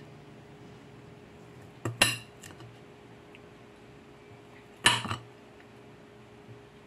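Kitchen knife slicing through bitter gourd (ampalaya) and striking the cutting board: two sharp chops about three seconds apart, each a quick double knock.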